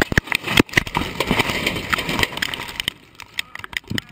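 Crash impacts inside a vehicle cabin: a rapid jumble of knocks, cracks and rattles, loudest in the first second and thinning out and fading over about three seconds.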